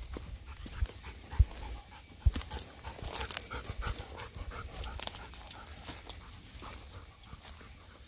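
Golden retriever panting in quick repeated breaths, with a few dull low thumps in the first couple of seconds.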